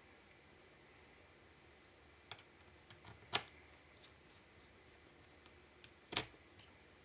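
A few small, sharp clicks and taps of a precision screwdriver and tiny screws during laptop repair: light ticks about a third of the way in, the loudest click about halfway in, and another near the end.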